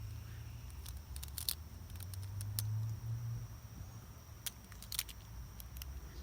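Wind rumbling on the microphone, with scattered sharp clicks of plastic Beyblade top parts being handled and fitted together.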